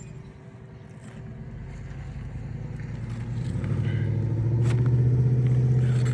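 A motor vehicle's engine hum builds up to a peak about five seconds in, like a car or truck driving past.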